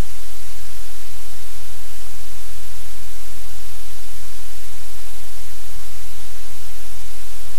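Steady loud hiss of static with a low hum underneath.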